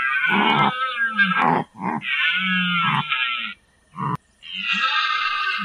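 An animal calling: three or four loud, drawn-out calls of a second or so each, with a short one between them, separated by abrupt breaks.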